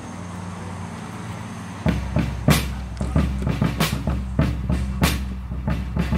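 Steady low hum of street background, then about two seconds in a band starts playing: a Gretsch snare drum hit with sticks about two to three times a second, with acoustic guitar over a steady low bass.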